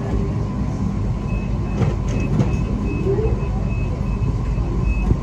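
Steady low rumble and hum inside a stopped passenger train, with a rapid run of short high beeps, about three a second, from about a second in until near the end.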